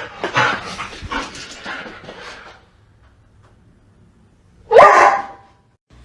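A dog barking and yipping: a run of short, noisy sounds over the first two and a half seconds, then one loud, sharp call about five seconds in.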